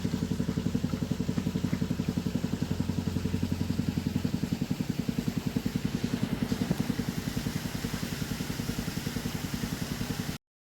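An engine idling with a rapid, even putter, which cuts off suddenly near the end.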